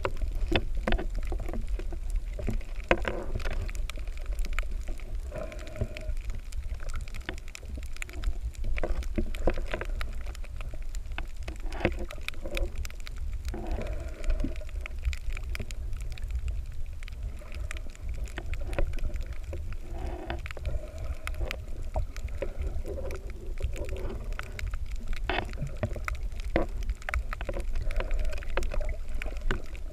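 Underwater sound picked up by a camera below the surface over a coral reef: a low, muffled water rumble with frequent small clicks and crackles, and muffled wavering tones that come and go.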